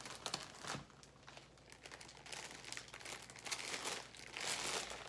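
Plastic multipack bag of instant noodles crinkling as it is picked up and handled, the crackling loudest near the end.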